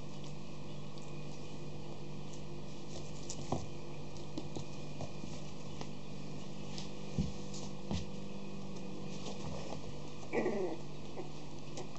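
Puppies scuffling and playing on a sheet over a wooden floor: scattered patter of paws and claws with light clicks and knocks, and a brief high squeal about ten seconds in. A steady low hum runs underneath.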